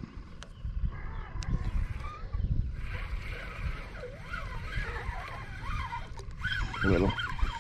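Wind buffeting the microphone in uneven low gusts, with birds calling in a rapid wavering chatter from about a second in.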